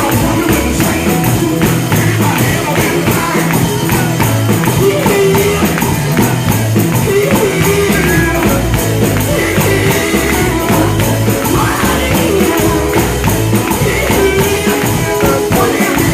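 Live gospel music with a fast, steady tambourine beat over a pulsing bass line.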